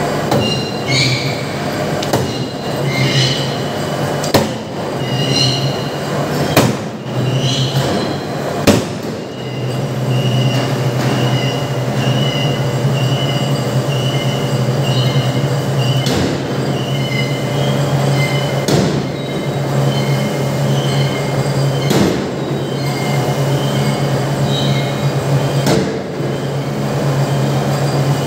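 Power forging hammer striking red-hot steel in the die: about seven heavy blows, irregularly spaced two to four seconds apart, over a loud steady low machinery hum, with high-pitched squealing tones coming and going.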